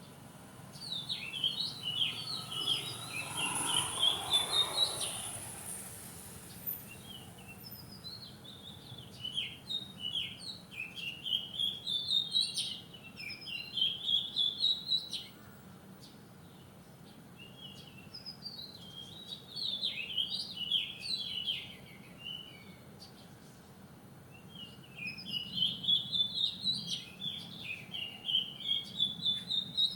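Wild songbird singing: repeated phrases of quick, high chirping notes that climb in pitch, each phrase lasting a few seconds, with short pauses between.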